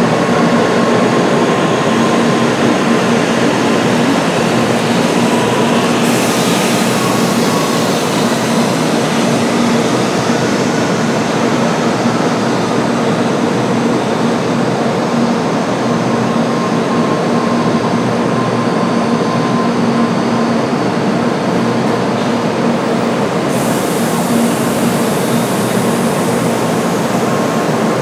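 N700A-series Shinkansen train running past a station platform, a loud, steady rumble of wheels and running gear with a steady hum. A high hiss comes in suddenly about six seconds in and again near the end.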